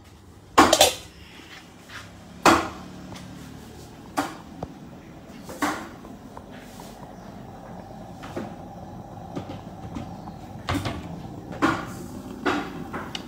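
Sharp knocks and clatters of things being handled and set down in a kitchen, about seven of them spread unevenly over the stretch, over a steady low background hum.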